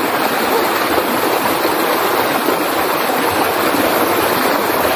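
River water rushing steadily over rocks, a loud, even rush.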